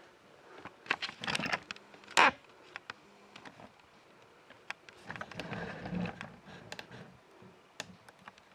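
Handling noises: scattered light clicks and rustling, with a loud burst about two seconds in and another cluster of clicks around five to six seconds in.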